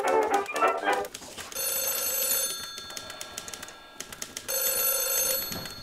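Telephone bell ringing twice, each ring about a second long with a pause of two seconds between, after brass music stops about a second in.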